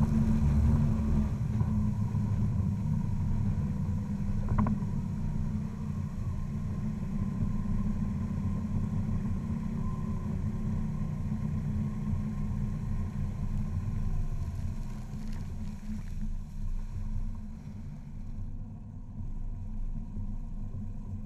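Mercury XR6 150 hp outboard running at speed on a bass boat: a steady low engine drone mixed with the rush of water and wind, growing quieter over the last few seconds. One brief knock about four and a half seconds in.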